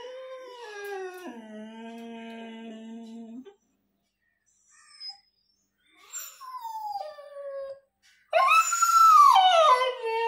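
A young native Indian puppy howling and whining, crying in distress because its owner has gone out. A long howl drops to a lower held pitch about a second in and stops near four seconds. A short falling whine comes around six seconds, then a louder howl rises and falls near the end.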